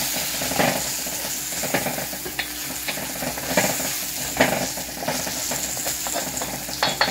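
Carrots and onions sizzling in a wok, stirred with a wooden spatula that scrapes and knocks against the pan now and then.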